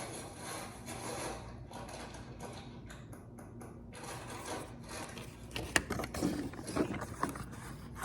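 Hands handling small toy packaging: faint rubbing and scraping, then a run of small clicks and plastic crinkles in the last few seconds as the next mini toy is unwrapped.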